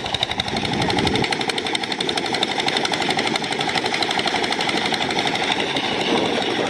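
Rice threshing machine running steadily, its engine and drum making a rapid, even clatter.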